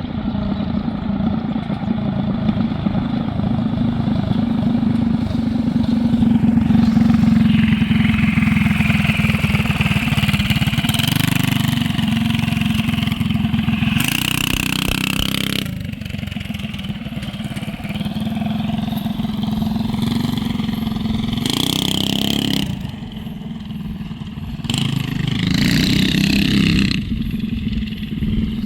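Small gas engine on a homemade motorized cart running under riding, its revs climbing and falling several times as the throttle is opened and eased off.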